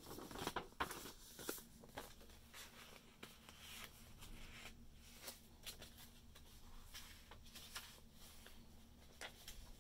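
Faint rustling and crinkling of paper as a handmade journal's pages and a folded coloring-book page are handled, unfolded and turned. The rustles come in short irregular bursts and are busiest in the first couple of seconds.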